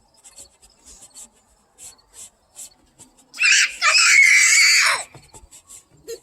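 A loud, shrill, high-pitched cry lasting under two seconds, starting about three seconds in, its pitch wavering, over faint scattered ticks and rustles.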